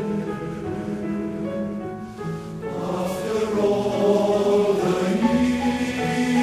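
Male voice choir singing a slow song with piano accompaniment, held notes in several parts, swelling louder about halfway through.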